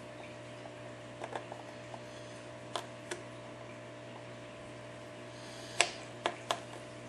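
Scattered sharp clicks and ticks of a flat pry tool working under the cracked glass digitizer of an iPad 4, breaking the adhesive loose: about six in all, the loudest a little before six seconds in. A steady low hum runs underneath.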